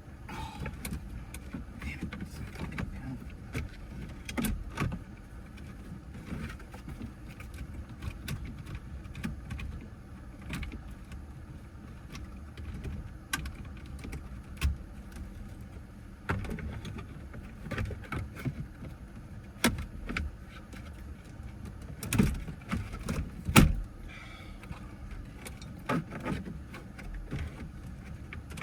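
Plastic dash trim panel being handled and pushed into place in a car's interior: scattered clicks, taps and knocks at irregular intervals, with a few louder knocks a little after the middle, over a steady low hum.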